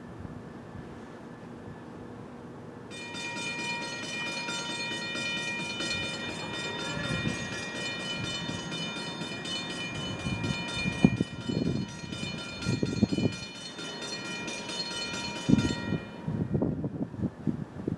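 A train horn sounds one long, many-toned chord for about thirteen seconds, starting about three seconds in. In the second half, low irregular thumps and rumbles come and go.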